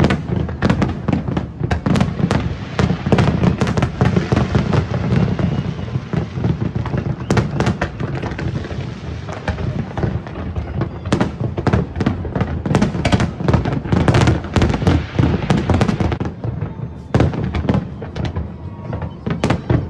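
Large aerial fireworks display: a dense, near-continuous barrage of bangs and crackles, thinning slightly for a few seconds near the end.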